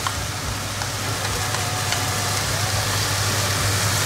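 Stir-fry vegetables sizzling in a hot wok on a gas stove, a steady hiss over a constant low hum, with a few faint clicks of a spoon against a plate as green beans are scraped in.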